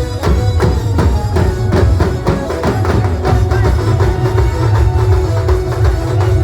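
Live band music: a quick, steady drum beat over heavy bass, with a held melody line on top.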